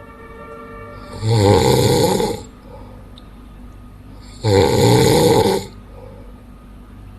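A sleeping man snoring loudly: two long snores, each a little over a second, about three seconds apart, with quieter breathing between them.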